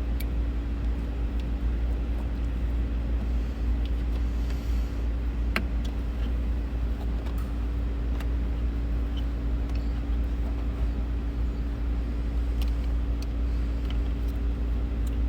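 A steady low rumble with a constant hum under it, and a few small clicks and taps as the tweeter and trim are handled and fitted.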